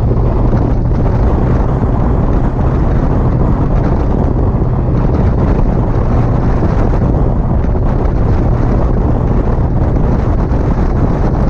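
Locost 7 kit car's engine running steadily at light throttle at about 28 mph, a constant low drone, with wind buffeting the microphone in the open cockpit.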